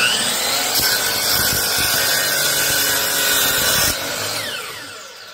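DeWalt miter saw (chop saw) running at full speed, loud, with its blade cutting through a block from about a second in for about three seconds. Then the motor is switched off and the blade spins down with a falling whine.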